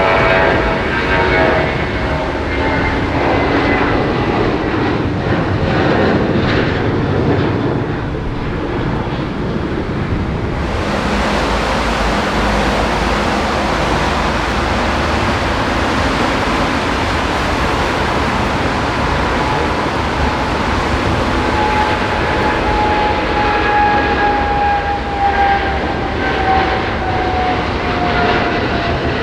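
Jet airliner engines running, with a whine that slowly falls in pitch, over a steady, heavy rushing noise that grows brighter about a third of the way in.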